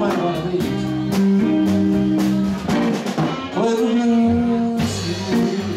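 Live band playing with electric guitars and a drum kit: held guitar notes and chord changes over a steady drum beat.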